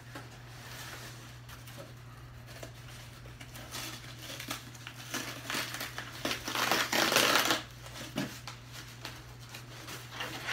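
Cardboard box being opened by hand: tape and flaps tearing and cardboard rustling, loudest in a dense burst about seven seconds in.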